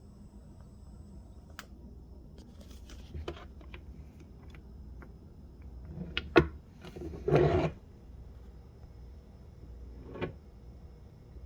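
Scattered handling noises: light clicks, a sharp knock about six seconds in, a short scraping rub just after it, and one more knock near the end.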